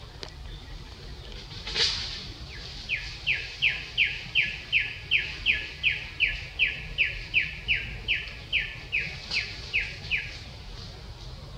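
A bird calling a long run of about twenty short, evenly spaced notes, each sliding downward, at nearly three a second. A brief rushing noise comes just before the calls start.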